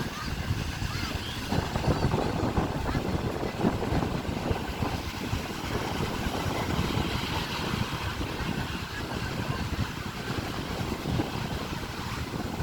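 Wind buffeting the microphone at the seashore: a steady, uneven low rumble and flutter.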